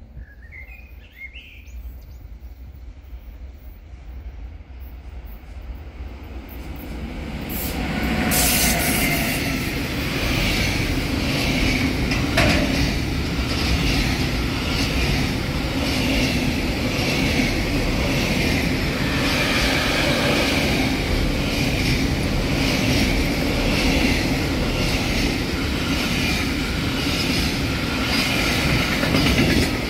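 Container freight train approaching and then passing close by, growing louder over the first eight seconds. It then runs on as a loud, steady rumble with the wagons' wheels clattering over the rails in a regular beat of about once a second.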